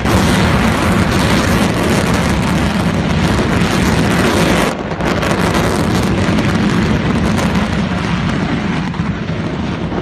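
Stromboli's explosive eruption: a loud, continuous roar from the erupting crater. It dips briefly about halfway through and eases slightly near the end.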